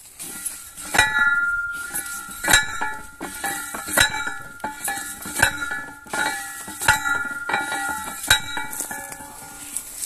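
Steel fence post being driven into the ground: six ringing metallic clangs at an even pace, about one and a half seconds apart, each ringing on at the same pitches.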